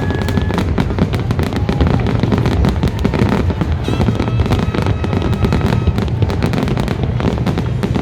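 Fireworks display going off in a dense, continuous barrage of rapid bangs and crackles.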